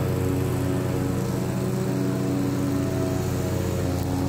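Toro TimeCutter zero-turn mower's 22.5 horsepower Toro engine running steadily at a constant speed as the mower drives across the lawn.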